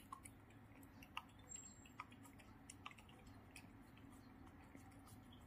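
British Shorthair cat lapping yogurt from a small cup: faint, sharp wet tongue clicks, irregular, about one a second.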